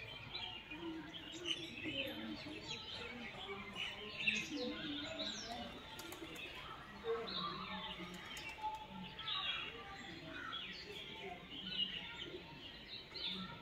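Many small birds chirping and twittering in a continuous, busy chorus.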